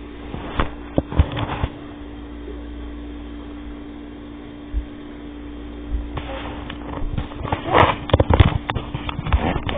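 A steady low hum, with a few sharp clicks early on and a busier run of clicks and rustling from about six seconds in.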